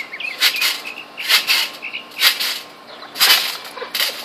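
Trampoline bouncing in a steady rhythm, about one bounce a second, each bounce a short swish. Birds chirp faintly between the bounces.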